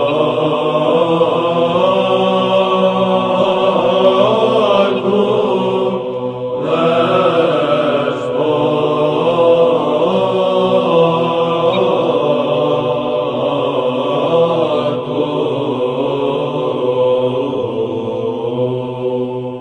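Byzantine (Greek Orthodox) chant: voices sing a slow melody over a steady, held low drone (the ison). The singing begins to fade out at the very end.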